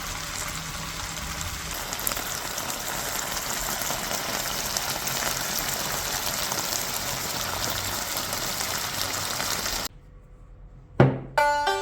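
A steady rushing hiss of liquid with fine crackles, running for about ten seconds before it cuts off suddenly. A short whoosh follows, and plucked-string music begins at the very end.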